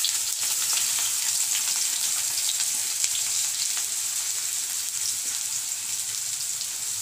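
Chopped onion sizzling in hot oil in a kadai, just tipped in: a steady hiss with many small crackles that eases a little over the seconds.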